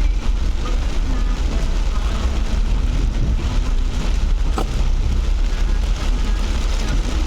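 Off-road 4x4 driving in heavy rain: a steady low engine and road rumble under the hiss of rain on the vehicle, with one brief sharp sound just past halfway.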